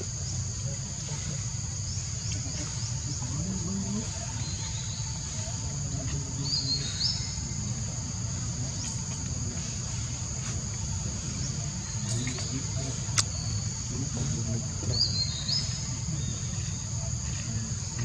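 Steady high-pitched insect drone, with the same short bird call twice, about seven and fifteen seconds in, and a single sharp click a little after thirteen seconds, over a low steady rumble.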